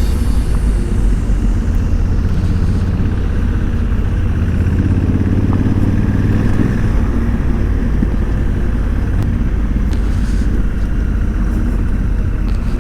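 Motorcycle engine running steadily while riding, with a continuous deep rumble.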